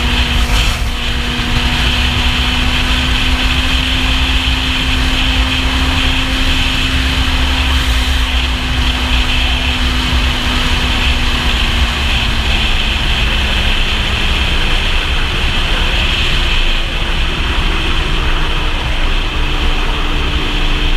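Kawasaki Z750 inline-four engine running at steady highway cruise, heard through a GoPro under heavy wind rush and buffeting. Its note sags slightly in pitch a little past the middle.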